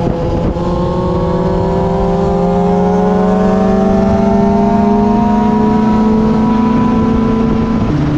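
Motorcycle engine pulling under steady acceleration at road speed, its pitch rising slowly and evenly for several seconds. Near the end the pitch drops abruptly.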